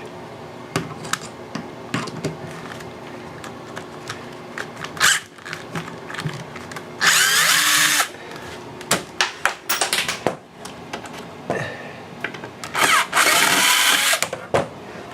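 A handheld power tool runs in two short bursts of about a second each, amid scattered sharp clicks and knocks from work on ceiling tiles.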